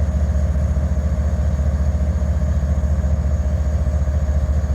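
Diesel-electric freight locomotive idling: a steady, loud low engine rumble.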